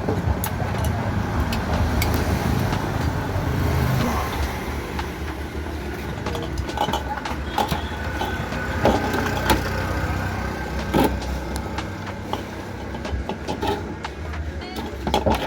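Steady low engine hum with scattered sharp clicks and knocks of handwork over it.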